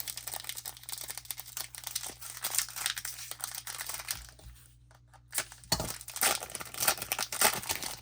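Crinkling and tearing of a baseball card pack's wrapper as it is ripped open, in two spells of crackling with a short pause in between, about halfway through.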